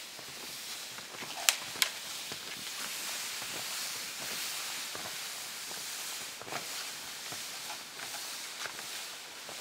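Snowshoe steps crunching in snow and a sled sliding behind, over a steady high hiss, with two sharp clicks about one and a half seconds in.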